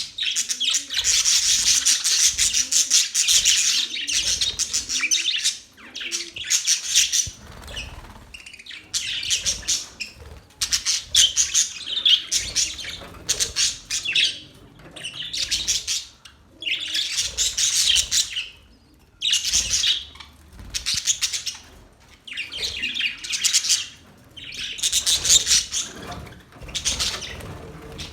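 Budgerigars chirping and chattering in quick bursts of rapid twittering, bout after bout with short pauses between.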